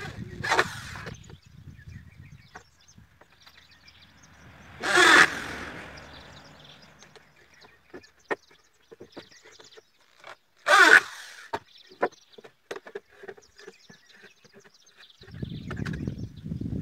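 Corded electric drill run in three short bursts, each ending as the trigger is let go, while working on the wooden seat of a folding chair. The middle burst is the loudest. Light wooden clicks and knocks fall between the bursts, and a low rumble comes near the end as the chair frame is handled.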